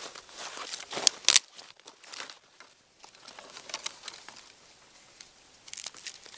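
Dry twigs and split sticks being handled and laid onto a small kindling fire: crackling and rustling, with a few sharp snaps at the start and about a second in.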